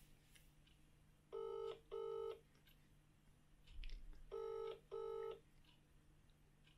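Phone ringback tone through a smartphone's loudspeaker while an outgoing call waits to be answered: the British double ring, two short beeps repeated twice about three seconds apart.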